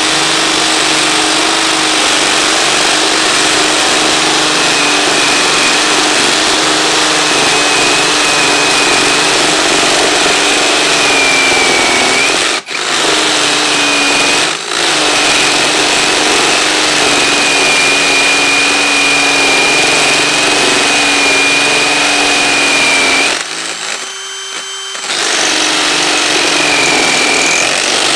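Ryobi One+ brushless hammer drill hammer-drilling into a concrete block with a masonry bit, the motor running steadily under load. It cuts out for a moment twice around the middle, then eases off for about a second and a half about two-thirds of the way through before running again.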